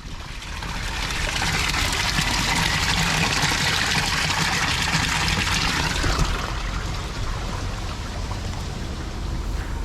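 Heavy typhoon rain hissing down, with wind rumbling on the microphone. The rain sound builds in the first second and eases a little after about six seconds.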